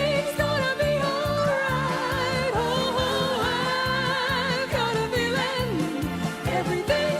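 A song playing with a steady beat, its melody carried in long held notes that waver with vibrato.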